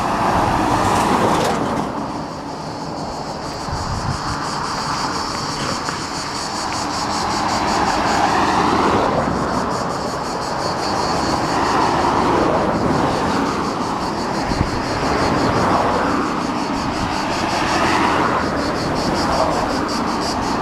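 Road traffic passing along the road, a steady roar that swells and fades as vehicles go by several times. A high, pulsing buzz runs underneath.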